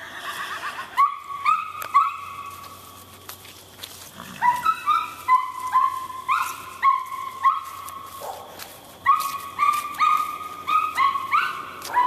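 A dog barking over and over in short, high-pitched yips, coming in quick runs of several barks with brief gaps between runs.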